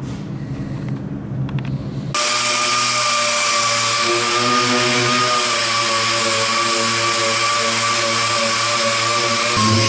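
Air-powered orbital sander running against a bus's painted sheet-metal side panel: a steady high whine with a hiss of air. It comes in suddenly about two seconds in, over a lower hum.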